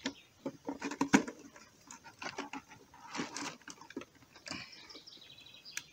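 Handling sounds while sorting live crayfish: the nylon mesh of a crayfish trap rustling, with scattered clicks and clatters of plastic as crayfish are taken out and put into a clear plastic container. A few sharper clicks come about a second in and one near the end.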